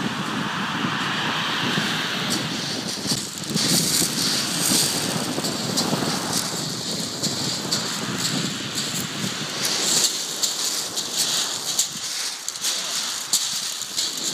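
Surf washing on a shingle beach, with footsteps crunching and scraping on the pebbles from about three seconds in.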